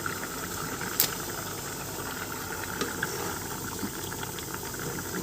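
Pot of rice-and-pasta mix boiling on the stove, a steady bubbling hiss with scattered small clicks and one sharp click about a second in.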